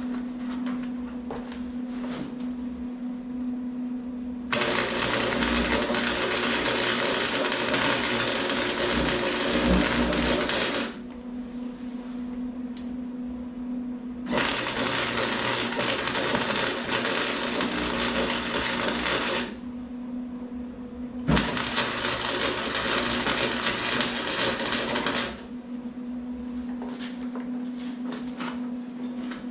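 Welding arc laying three beads in a row, each a steady noisy run of several seconds (the first about six, the last about four), with a steady low hum in the pauses between.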